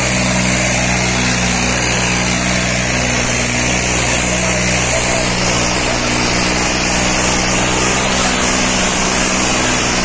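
John Deere 5210 tractor's three-cylinder diesel engine running hard at a steady speed, loaded by a disc harrow dug deep into the soil.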